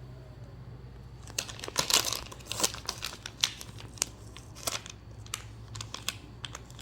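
Plastic toy packaging being crinkled and torn open by hand, in irregular rustling clicks that start about a second in.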